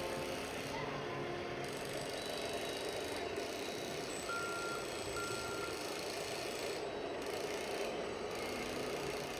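Steady rattling, whirring mechanical noise of RC construction models at work, with two short beeps in the middle.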